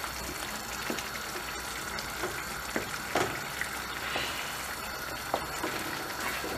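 Wooden spoon stirring thick tomato-and-pepper menemen in a stainless steel frying pan as a beaten egg is mixed through. The sauce sizzles steadily over the heat, and the spoon knocks lightly against the pan now and then.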